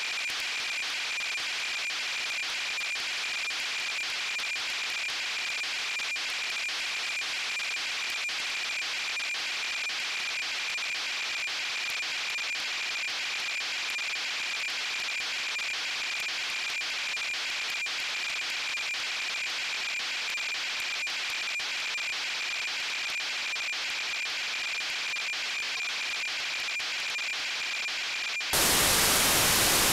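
Radio receiver static from a satellite downlink on the 70 cm band: steady hiss with a steady high beat tone from the satellite's carrier. Near the end the hiss jumps sharply louder for about two and a half seconds, as the carrier briefly drops out.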